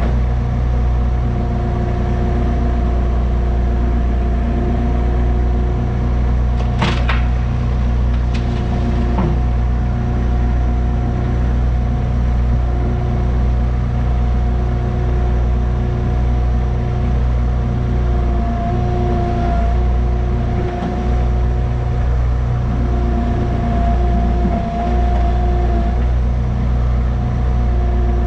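Cat 301.7 CR mini excavator's diesel engine running steadily while digging, heard from the operator's seat, with a steady whine over the engine hum. A few sharp clicks or knocks come about seven to nine seconds in.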